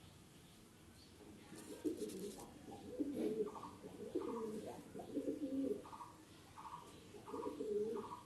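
Racing pigeon cooing in several low bouts, with a row of short, higher notes repeating about every half second in the second half.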